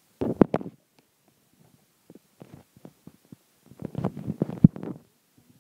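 Handling noise: short clicks and rustling in two bursts, a brief one right at the start and a longer one around four seconds in with one sharp click, as the hand-held camera is moved about.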